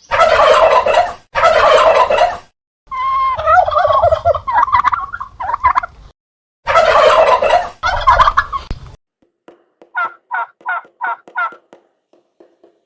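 Farm fowl calling in loud, warbling bursts, then a run of about seven short, quick notes near the end.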